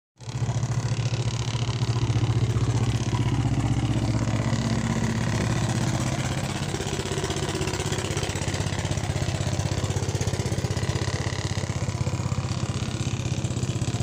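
A boat engine running steadily, close by, with a fast even chugging, easing slightly about six seconds in.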